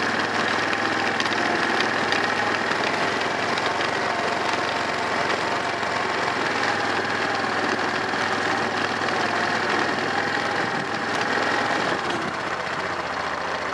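Yamaha Kodiak ATV's single-cylinder four-stroke engine running steadily under way, heard from the rider's seat while it tows a loaded sled.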